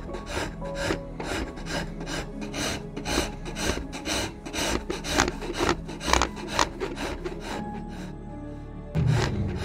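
A hand file rasping the wood of a shotgun stock pattern in quick back-and-forth strokes, about three a second, with the file floated backwards as well as pushed. The strokes stop about three-quarters of the way through.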